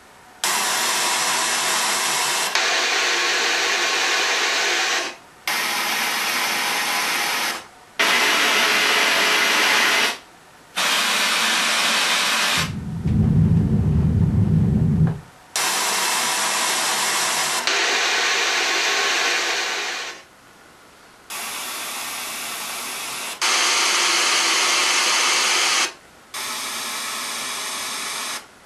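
A string of about ten loud, steady hissing noises, each two to three seconds long, starting and stopping abruptly with short gaps between, each a slightly different shade of hiss; one about halfway through carries a deep rumble under it.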